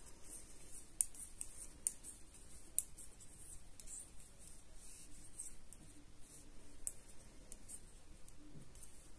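Knitting needles clicking and tapping as stitches are worked, a faint, irregular series of light clicks.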